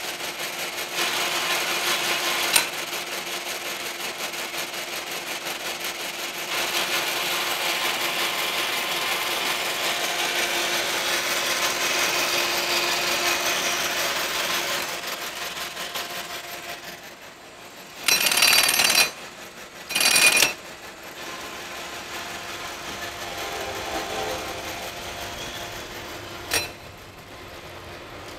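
Norton cylindrical grinder running: steady machine noise with a constant hum, dying down about fifteen seconds in. Then come two short, loud bursts of hiss a second or so apart, and a single sharp click near the end.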